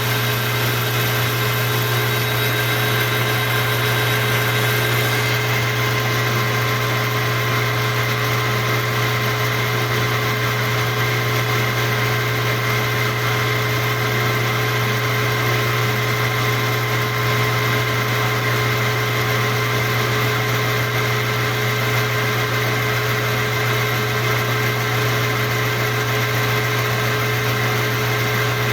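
Steady hum of a workshop machine's electric motor running at a constant speed, with a few fixed tones over a low drone and no cutting or impact sounds.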